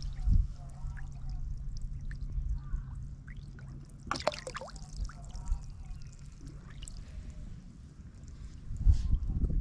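Small water sounds in a shallow rocky pool: light trickling and bubbling over a low rumble, with one brief splash about four seconds in and heavier low thumps near the end.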